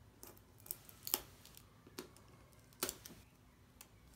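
Small hand tool scraping and clicking along the edge of a cardboard box as the seal is slit open: a few short, irregular scratches and clicks, the sharpest about a second in and just before three seconds.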